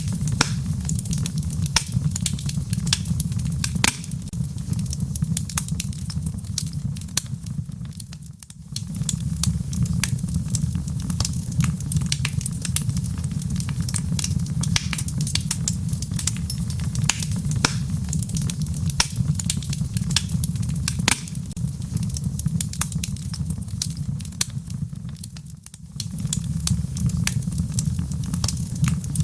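Wood fire burning in a fireplace: a steady low rumble of flames with dense, irregular crackles and pops. The sound dips briefly twice, about a third of the way in and near the end.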